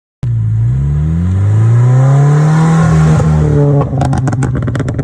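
Toyota GT86's FA20 flat-four engine revving up through aftermarket rear mufflers, the revs climbing and then held. About four seconds in the throttle closes and the exhaust pops and crackles in quick, irregular cracks on the overrun: the mild crackle setting of its ECU remap.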